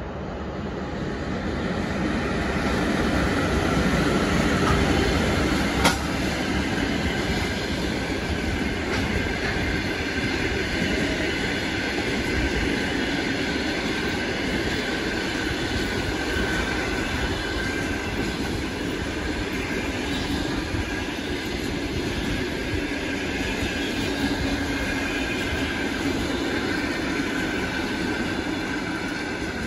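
ChS7 electric passenger locomotive passing at speed, followed by a long train of passenger coaches rolling by, with steady rumbling and clattering wheel noise and a faint wheel squeal. The sound builds to its loudest as the locomotive passes about four seconds in, with a single sharp knock about six seconds in.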